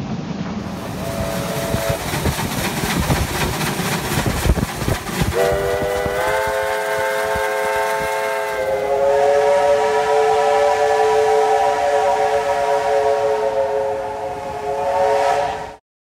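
Steam locomotive working steam with hiss and exhaust beats, then a multi-note chime whistle sounds about five seconds in. It changes to a second, lower chord a few seconds later and is held long before cutting off suddenly.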